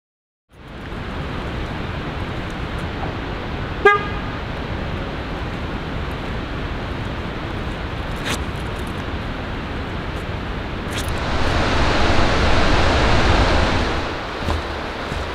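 Steady rushing outdoor noise with one short, horn-like beep about four seconds in. The noise swells louder for a few seconds near the end, then settles back.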